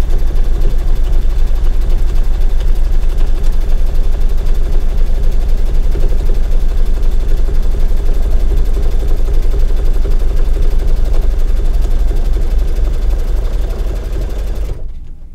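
Brother Luminaire 2 embroidery machine stitching at speed with a rapid, even rhythm as it sews the final outline of an appliqué, then stopping abruptly near the end.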